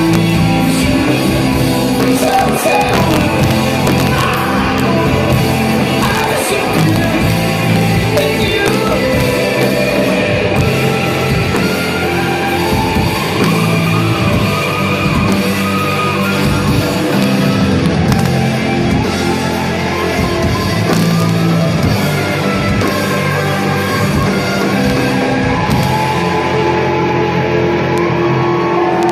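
Live rock band playing loudly, with a singer's voice over the band.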